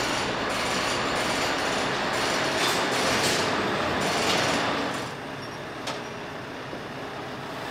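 Automatic truck-wash machinery running around a truck: a steady wash-machine noise that falls to a quieter level about five seconds in, with a single click shortly after.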